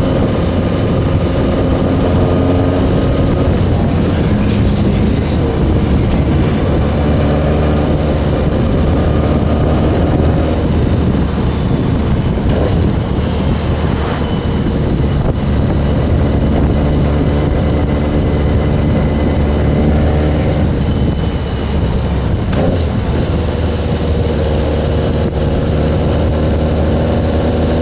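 1980 Yamaha XS1100 SG's air-cooled inline-four engine running under way at a steady cruising speed. It is missing, a misfire that shows at constant part throttle and not when given plenty of gas.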